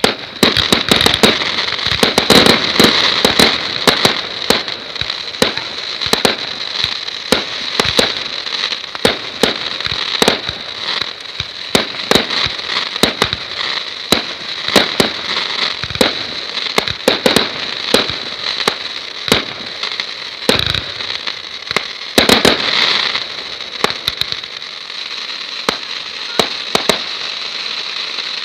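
Fireworks going off in a dense, continuous barrage of bangs over steady crackling. It starts suddenly, and the heaviest volleys come about two seconds in and again around twenty-two seconds.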